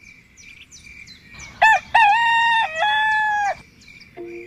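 A loud bird call in several held, pitched parts, lasting about two seconds from a second and a half in, over a steady high insect trill and a few short falling bird chirps. Plucked music notes begin near the end.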